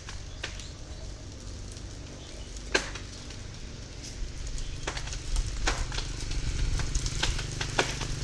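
Coconut palm trunk cracking as the tree slowly tips over: scattered sharp snaps that come more often toward the end, over a steady low hum.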